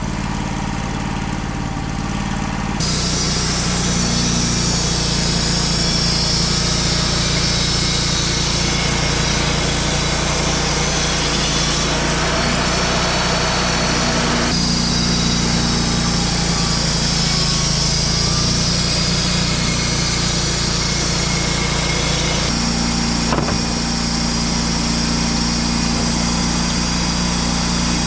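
Wood-Mizer LT35 portable sawmill's engine running steadily at work. It jumps louder about three seconds in and shifts in tone twice later on.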